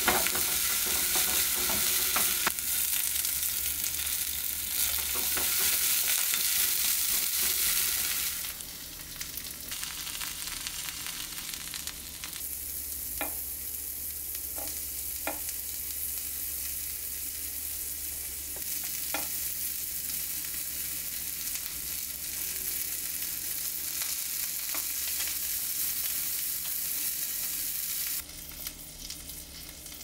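Chopped green onions and sausage sizzling in a small square non-stick frying pan while being stirred with a silicone spatula. The sizzle is loudest for the first several seconds, drops to a softer hiss after about 8 seconds, and stops shortly before the end; a few light clicks of the spatula come in the middle.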